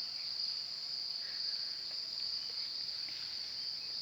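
A steady, high-pitched, cricket-like insect chorus trilling without a break.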